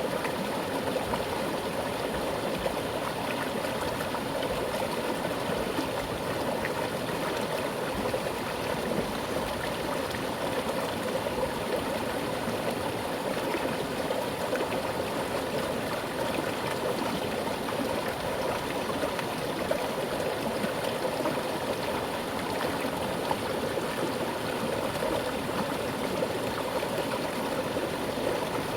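Mountain stream flowing with a strong current, a steady rush of water over rocks with gurgling.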